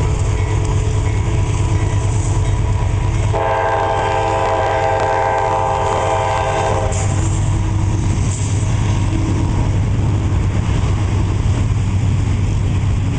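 Locomotive air horn on a GE test-track train, sounding one long chord-like blast of about three and a half seconds a few seconds in, over a steady low rumble of the passing train.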